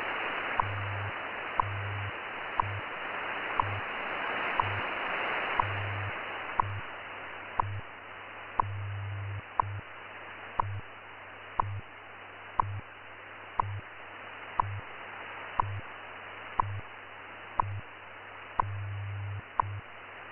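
WWV time-standard broadcast received on 20 MHz shortwave: a short tick once every second over a steady bed of static hiss. Underneath runs a low hum that switches on and off in pulses of varying length, which is the station's 100 Hz time code.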